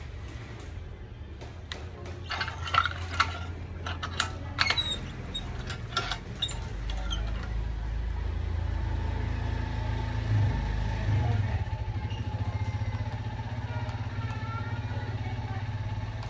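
A motorcycle engine running at idle, its hum growing louder about seven seconds in, with a brief change in pitch a few seconds later. A string of sharp clicks and knocks comes in the first half.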